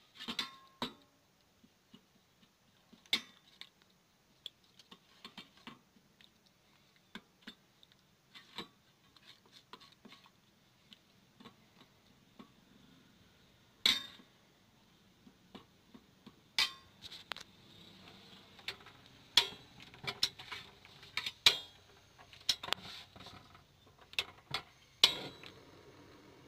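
Metal spoon clinking and tapping against a bowl while flour batter is stirred, in sparse irregular clinks. In the second half the clinks of cookware come faster and louder.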